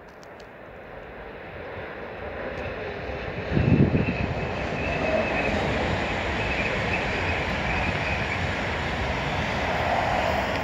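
Approaching electric freight train, its rolling noise growing steadily louder over the first few seconds and then holding loud and even, with a faint high whine through the middle. A short low thump about four seconds in.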